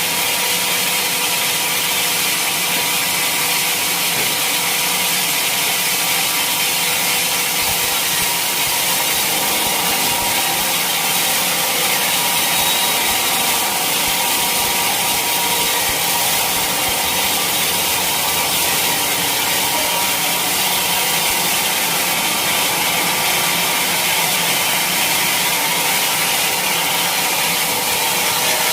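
Bandsaw mill blade sawing steadily through a teak log, a loud, even cutting sound with the mill's motor running underneath.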